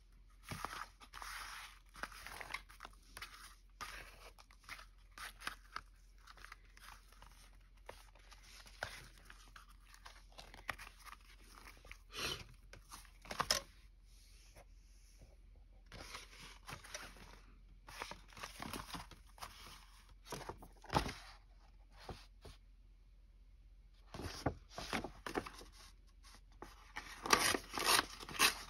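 Paper and card handled by hand, with a run of short rustling, crinkling and tearing sounds and small taps. There is a quiet pause about two-thirds of the way through, then a busier stretch near the end.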